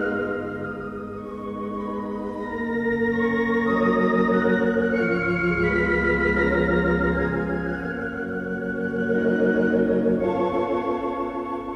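Hilsdon 3-manual, 10-rank theatre pipe organ playing slow, held chords with a wavering tremulant, bright and reverberant in a hard-surfaced auditorium. A deep pedal note sounds under the chords from about five to eight seconds in.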